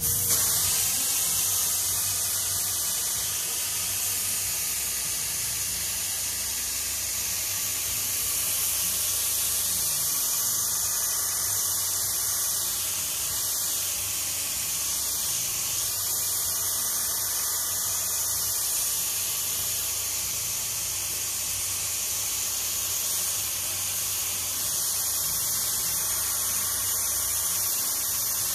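Air-powered spray gun spraying glue: a steady hiss of air and adhesive mist that starts suddenly and keeps on at an even level.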